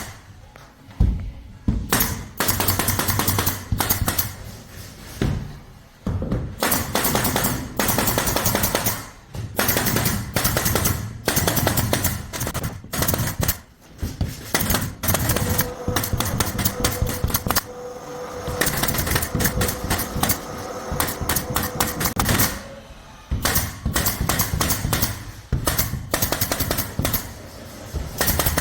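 Keyang 422 pneumatic air stapler firing staples over and over: sharp clacks in quick runs, with short pauses between the runs.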